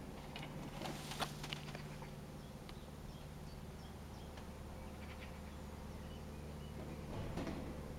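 Faint, steady drone of a small propeller plane flying unseen overhead: a low, even hum that grows a little louder near the end. A few small clicks come about a second in.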